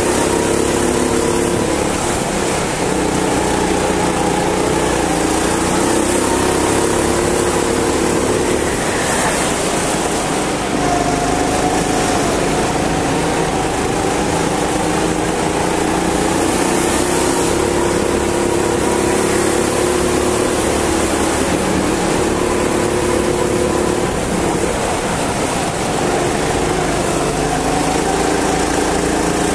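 Go-kart engine heard onboard while driving laps, its pitch rising as it speeds up and dropping as it slows for the turns, again and again, over a steady hiss.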